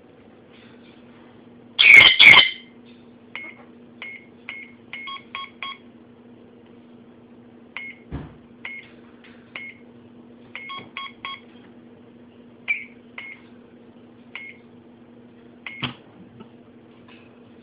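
GunVault handgun safe's keypad beeping as its buttons are pressed one at a time, with short single beeps and two quick runs of beeps. Two louder bursts come about two seconds in, and a low steady hum lies under it all.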